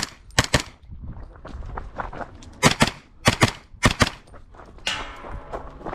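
Handgun shots fired in quick pairs, double taps, about four pairs in a few seconds, with sharp cracks and short echoes.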